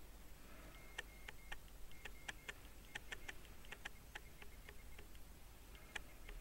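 Irregular sharp clicks, about three or four a second, starting about a second in and thinning out, with a few more near the end. A faint short high tone sounds between some of them.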